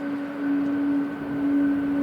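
Jet airliner engines running with a steady low hum, over gusting wind noise on the microphone.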